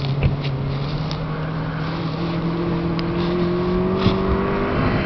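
Rally car engine running hard as the car pulls away down a dirt stage, a steady engine note that rises slowly in pitch.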